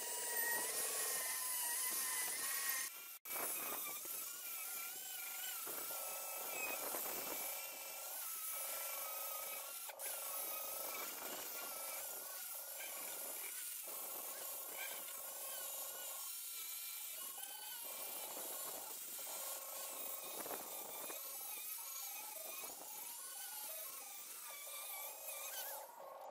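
Electric angle grinder with an abrasive disc running against the steel of an axe head, sanding and polishing it. A steady motor whine over a high hiss of abrasion, its pitch wavering as the disc is pressed onto the metal, with a brief break about three seconds in.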